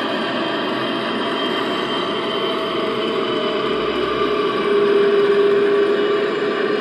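ESU LokSound decoder playing the DB Class 232 diesel engine sound through an EM1 speaker fitted in the model locomotive's fuel tanks, running steadily as the loco creeps along. A droning tone swells louder about five seconds in as it comes to a stop.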